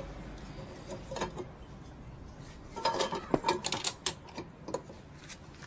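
Metal clicks and clinks of a clutch-holding tool and a socket wrench being fitted onto the clutch nut of a 125 cc scooter's clutch, a few near one second in and a quick cluster about three seconds in.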